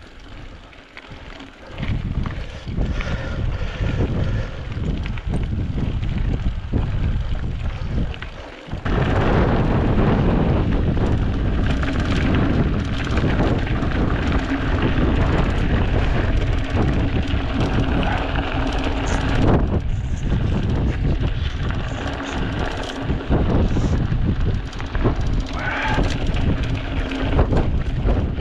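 Wind buffeting the microphone with a heavy, rough rumble, louder from about nine seconds in.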